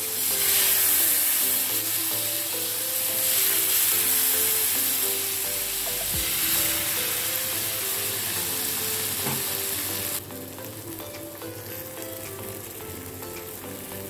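Freshly poured jowar-and-rice-flour dosa batter sizzling loudly on a hot dosa tawa. The sizzle drops off sharply about ten seconds in.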